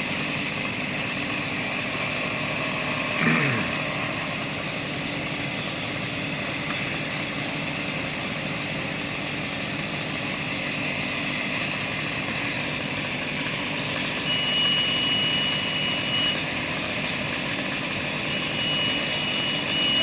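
Small engine idling steadily. A brief falling sweep comes about three seconds in, and two long, steady high beeps sound near the end.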